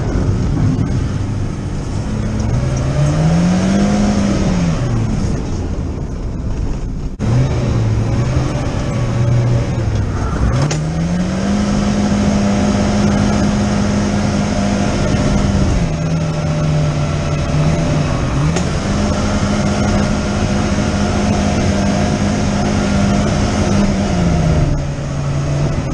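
1990 BMW E30 316i's M40B16 four-cylinder engine, heard from inside the cabin while driving. The revs climb and drop with the throttle, then twice hold steady at a high pitch for several seconds before falling away, over the hiss of tyres on a wet road.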